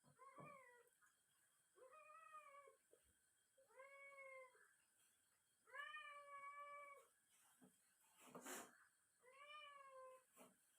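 A cat meowing repeatedly: five drawn-out meows a couple of seconds apart. About three-quarters of the way through there is a short noisy burst between two of them.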